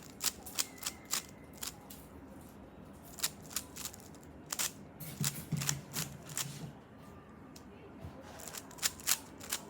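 Speed cube being turned by hand: the plastic layers click and snap in irregular quick runs of sharp clicks with short pauses between moves.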